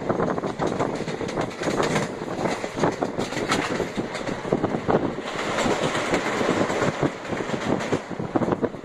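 Passenger train running along the line, heard from aboard a carriage: a steady running noise full of irregular rattles and clacks from the wheels and coaches.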